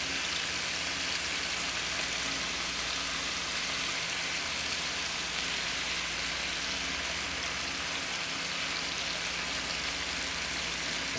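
Chicken breasts searing in vegetable oil in a skillet over high heat: a steady sizzling hiss.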